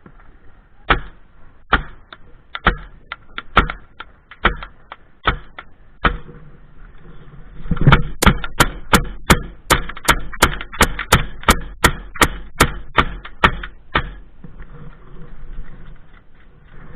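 Airsoft guns firing: scattered single shots over the first few seconds, then a faster, sharper string of about three shots a second from about eight seconds in to about thirteen seconds in.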